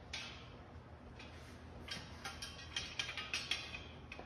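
Steel crucible tongs clinking and rattling as they are picked up and handled: a sharp click near the start, then a cluster of metallic clicks from about two to three and a half seconds in, over a faint low hum.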